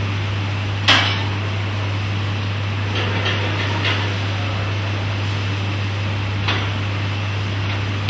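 Metal clanks of a steel frying pan and spoon on the stove: one sharp knock about a second in, lighter taps around three to four seconds in and again near six and a half seconds, over a steady low hum.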